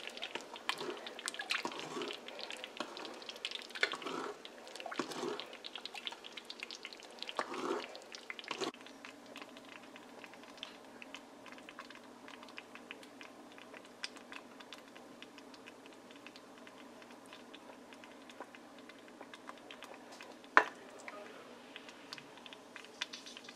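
A ladle stirring and scraping through thick haleem in a large metal pot, with irregular wet slapping strokes. About nine seconds in it cuts to a quiet faint steady hum with small soft ticks as the haleem is ladled out, and one sharp click near the end.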